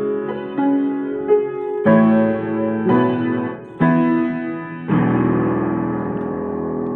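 Piano music: a run of chords, each struck and left to ring, the last one held for about two seconds.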